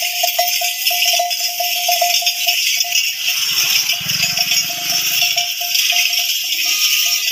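Bells and rattles on a caravan of walking camels, jingling steadily with one ringing tone through it that drops out briefly about three seconds in.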